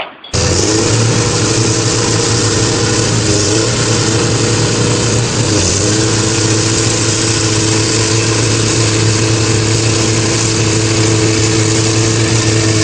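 An engine running steadily at an even speed, with a strong low hum and a noisy rush above it. It cuts in abruptly just after the start.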